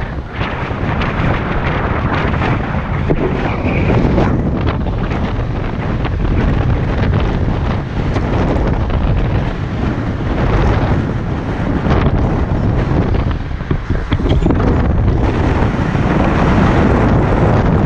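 Wind buffeting the microphone of a camera mounted on the outside of a moving car: a loud, steady rush.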